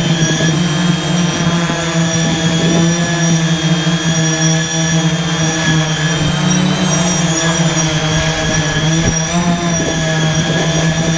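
SIS Labs Detach Y6 hexacopter, six brushless motors on three coaxial arms, hovering with a steady propeller hum. The pitch rises briefly a little past the middle as it moves off.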